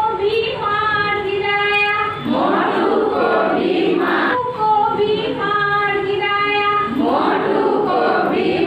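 A group of women singing a children's rhyme together, several voices on held notes.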